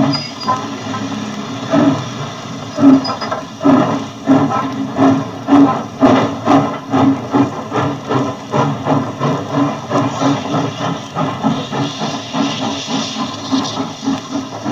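Steam locomotive pulling away, its exhaust beats quickening from about one a second to several a second, with steam hiss building toward the end. An archive sound-effects recording played from a disc through a record player's speakers.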